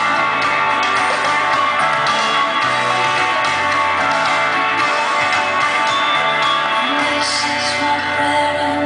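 A song with singing and guitar, played back over the hall's loudspeakers, steady and continuous.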